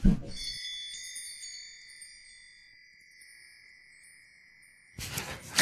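Chime jingle of a TV segment's title sting: a short low hit at the start, then high ringing chime tones that hold and slowly fade over about four seconds.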